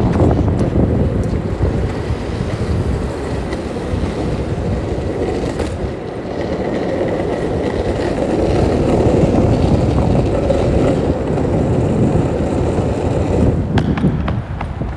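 Skateboard wheels rolling steadily over road pavement, a continuous rumble with a few sharp clicks near the end as the board crosses joints or rough spots.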